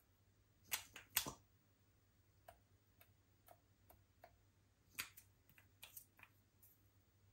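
Sparse light clicks and taps of hands handling small objects. The louder ones come about a second in and again around five to six seconds, with fainter ticks in between, over near silence.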